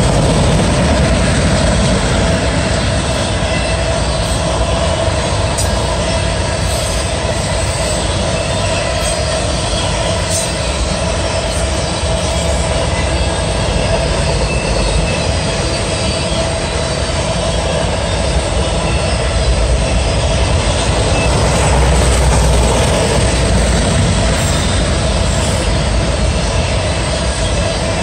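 Autorack cars of a fast CSX freight train rolling past at high speed: a loud, steady roar of steel wheels on rail with a constant ringing tone riding above it.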